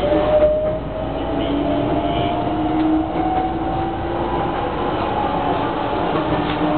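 Hankyu 9300 series electric train accelerating, heard from just behind the driver's cab: the inverter and traction motor whine rises slowly and steadily in pitch over the running noise of the wheels on the rails. A few clicks near the start.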